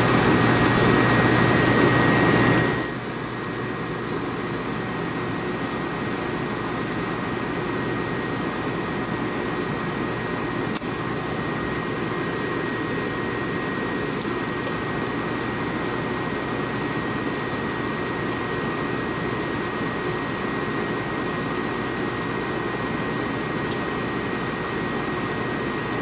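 Snyder General GUA gas furnace running and firing: a steady blower and burner noise with a thin, steady high whine. It is louder for the first two or three seconds, then settles.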